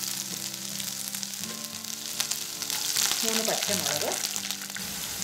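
Crushed cinnamon, cardamom and sliced ginger sizzling and crackling in hot coconut oil in a pan, a steady hiss with many small pops.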